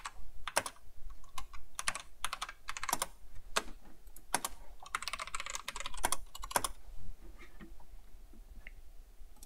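Typing on a computer keyboard: irregular keystroke clicks, with a quick flurry about five seconds in and only a few scattered clicks near the end.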